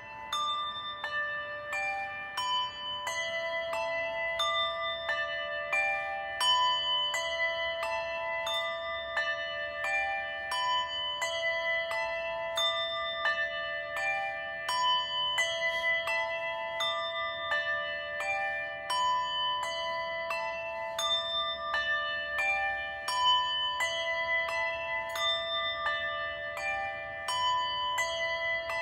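Several bells of different pitches rung continuously in an uneven, unsynchronised stream, about two strikes a second, each note ringing on and overlapping the next. This is memorial ringing in which each ring stands for Americans who have died of Covid.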